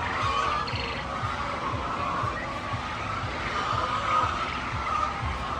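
A flock of chickens calling, many short overlapping calls running together without a break, with low soft thuds underneath.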